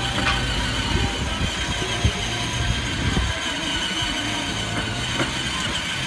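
Battery-powered kids' ride-on jeep driving over concrete: its hard plastic wheels rumble and clatter, with a thin steady whine from the electric drive motors.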